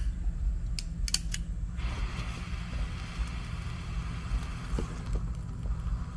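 A flint spark igniter is struck a few times, sharp clicks, and then an exothermic welding charge of powder and copper catches with a sudden hiss. The hiss slowly fades over several seconds as the charge burns down in the mould, welding the copper cable to the ground rod. Wind rumbles on the microphone throughout.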